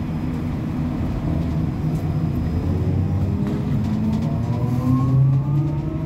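Caio Millenium BRT trolleybus running, its electric traction motor whine rising in pitch from about two and a half seconds in as the bus accelerates, over a steady low hum.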